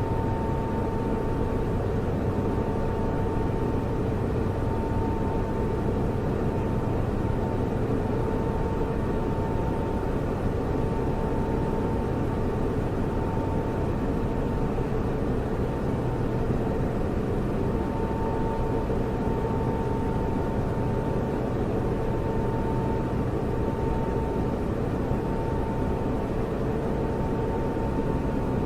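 Computer server running: a steady rush of cooling-fan air with a steady, slightly whining hum over it, unchanging throughout.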